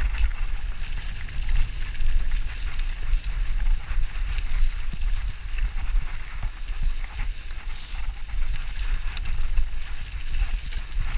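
Mountain bike rolling over a dry leaf-covered dirt trail: a steady low wind rumble on the microphone, with the tyres crackling through the leaves and many small rattles and clicks from the bike.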